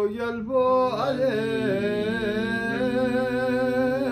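A man singing a Balti devotional qasida in praise of Ali, drawing the refrain out in long, slowly wavering held notes.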